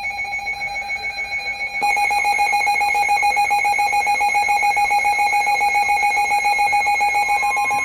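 Emergency weather alert radio sounding its alarm for an incoming warning: a loud, steady electronic alarm tone pulsing rapidly. It gets louder about two seconds in, and a second, slightly higher tone joins near the end.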